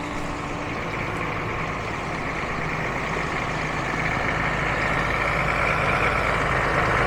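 Water truck's engine running steadily, with a hiss that grows louder toward the end.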